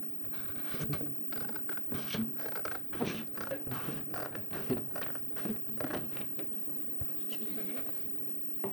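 Paper and card being worked by hand on a tabletop: irregular scratching and rustling strokes with light knocks, in the manner of drawing and marking lines with a pencil and ruler.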